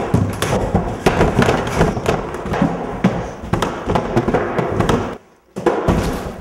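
A person tumbling down a flight of stairs: a rapid, irregular jumble of thumps, bangs and clatters. It breaks off suddenly about five seconds in, then comes one last short burst of knocks.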